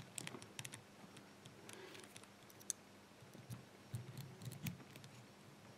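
Faint, irregular metallic clicks of a lock pick and tension wrench working the pin stack inside a brass padlock cylinder, with a few soft low knocks partway through.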